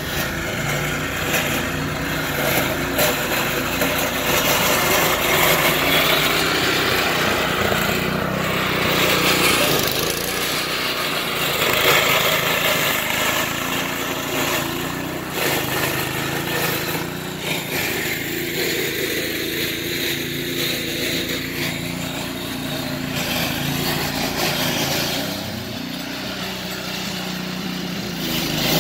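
Billy Goat power rake's small petrol engine running steadily under load while its spinning tines rip dead thatch out of the lawn, a constant engine drone with a rushing noise over it that swells and eases slightly as the machine is pushed along.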